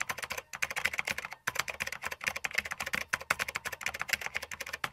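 Rapid computer-keyboard typing, several keystrokes a second with two brief pauses, about half a second and a second and a half in.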